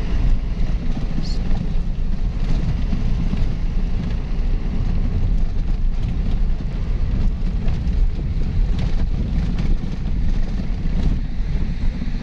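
A vehicle driving slowly over a rough gravel and mud road: a steady low rumble of engine and tyres with wind noise on the microphone, and a few faint knocks and rattles over the bumps.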